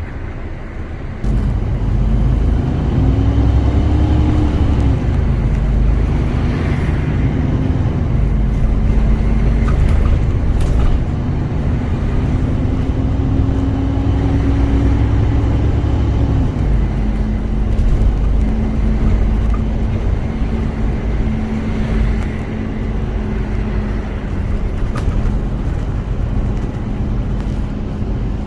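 City bus running, heard from inside the cabin: a heavy low engine and road rumble that grows louder about a second in. Over it, a whining tone climbs and falls several times as the bus speeds up and slows, then holds steady.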